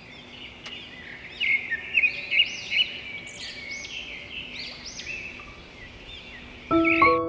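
Many small birds chirping and whistling over a faint background hiss. Piano music comes in near the end.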